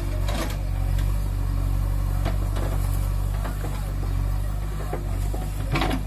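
JCB backhoe loader's diesel engine running steadily as it works, with a few sharp knocks, the loudest near the end.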